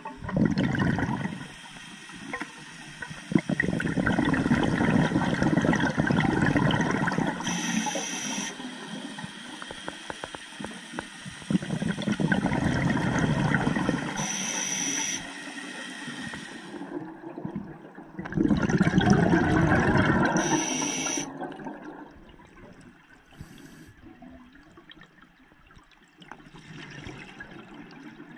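Scuba diver's exhaled bubbles streaming from the regulator, heard underwater: bursts of bubbling a few seconds long, about every six to seven seconds. A short high hiss comes between them, and the bubbling is quieter near the end.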